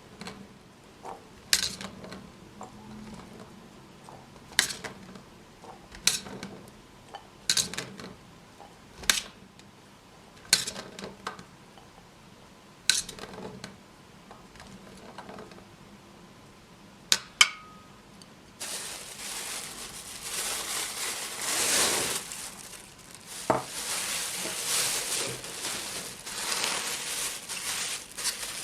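Cutlery and dishes clinking as they are handled and set down one at a time, a sharp clink every second or two. About two-thirds of the way through, a steady hiss starts and continues.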